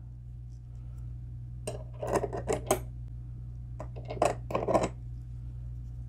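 Metal CPU-cooler mounting brackets clinking against each other and the threaded standoffs as they are fitted around a motherboard's CPU socket: a cluster of light metallic clicks about two seconds in and another around four seconds, over a low steady hum.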